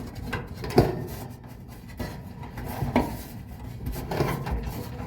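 Knocks, clicks and rubbing of hands and tools handling parts inside a dryer cabinet, with a sharper knock about a second in and another near the middle.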